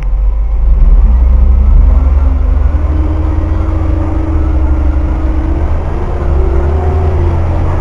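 Leyland Olympian double-decker bus with a Gardner 6LXCT six-cylinder diesel and Voith DIWA automatic gearbox, running with a heavy low diesel rumble. A whine above the rumble rises in pitch in steps over the first few seconds and climbs again near the end.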